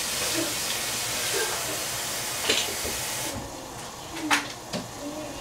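Tofu sauce sizzling in a hot pan: a steady hiss that cuts off suddenly about three seconds in, with a few short clinks of utensils, the loudest about four seconds in.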